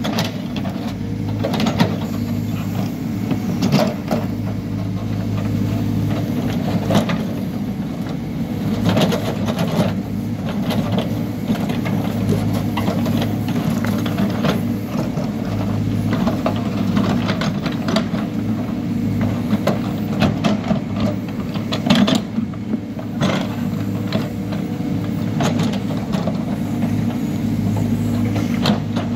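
Hidromek backhoe loader's diesel engine running steadily under digging load, with frequent short knocks and clanks from the backhoe arm and bucket working through dirt and stones.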